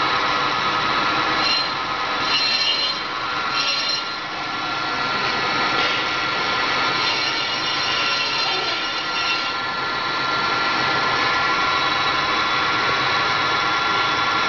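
T8465 brake drum and disc lathe running with a brake drum on its spindle: a loud, steady mechanical whine. Higher screeching passages come in at about two seconds and again around eight seconds.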